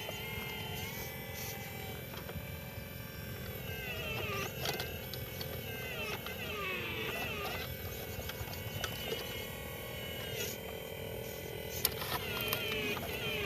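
Electric motors of radio-controlled construction models whining, the pitch rising and falling as they speed up and slow down, with a few sharp clicks near the end.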